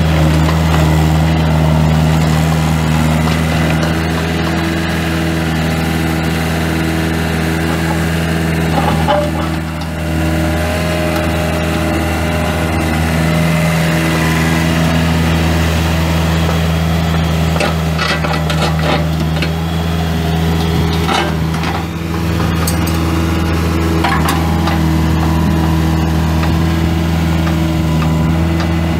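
Kubota four-cylinder diesel engine of a 2003 Vermeer CX224 mini excavator running steadily, with scattered knocks and clanks, most of them past the middle.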